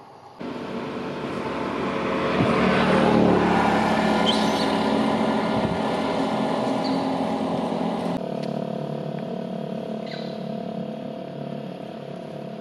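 A motor vehicle's engine running close by. It starts suddenly, grows louder for about three seconds, then slowly fades.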